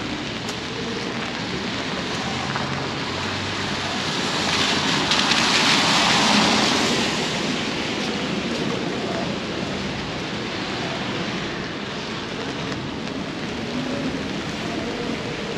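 Steady rain falling on a wet city street. A louder hiss swells and fades about halfway through.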